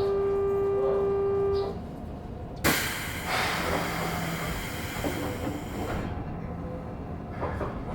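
Inside a Keikyu 1500 series train car at a station: a steady pitched tone stops about two seconds in, then a sudden thud and a loud hiss of air lasting about three seconds, the pneumatic doors closing with no door chime.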